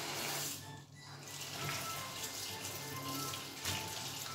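Tap water running into a stainless steel sink as a sponge rinses the soap suds off it, with soft background music over it.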